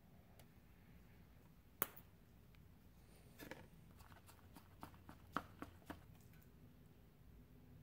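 Quiet hand-work sounds while J-B Weld epoxy is mixed on a scrap of cardboard: one sharp click about two seconds in, then a run of light clicks and short scrapes. A low steady hum sits underneath.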